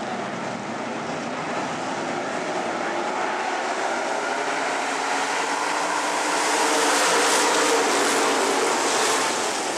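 A field of stock cars racing on a dirt oval, many engines running at once. The sound swells as the pack comes through the turn near the camera about two-thirds of the way in.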